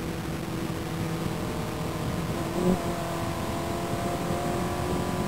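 Open-wheel single-seat race car's engine running steadily under power, heard from an onboard camera on the car, with a brief change in its note about halfway through.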